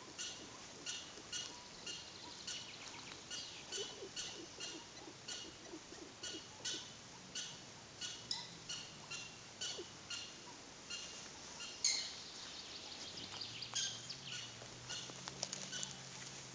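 An animal chirping over and over, about two or three short high chirps a second, with a single sharp click about twelve seconds in.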